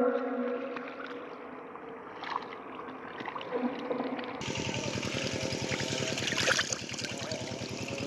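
Quiet water sounds at first, then, about four and a half seconds in, a small engine starts to be heard suddenly, running with a steady rapid putter.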